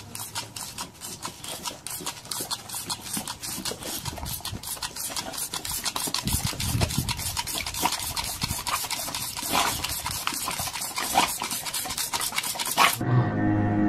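Water squirting from a green plastic water squirter in rapid repeated spurts, with a dog snapping at the spray. The spurts grow louder and cut off suddenly near the end, where music comes in.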